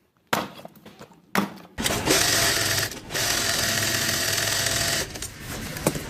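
Two sharp knocks, then a small electric motor whirring loudly for about three seconds with a short dip partway through, before it stops.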